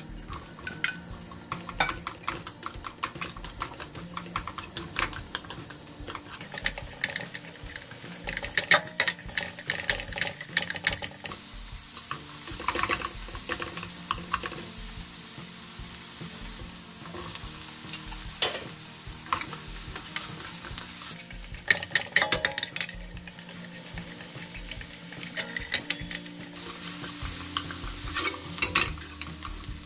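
Sliced onion and button mushrooms sizzling in melted butter in a nonstick frying pan, stirred with wooden chopsticks that click and scrape against the pan again and again.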